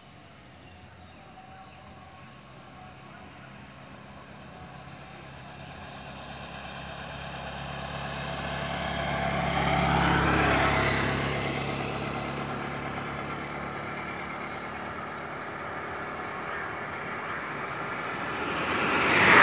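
Road vehicles driving past. One builds slowly to a peak about halfway through and then fades, and a second passes more quickly and louder near the end.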